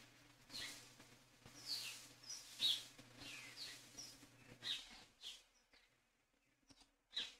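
Faint bird chirps: a run of short calls, each sweeping down in pitch, about two a second, thinning out near the end.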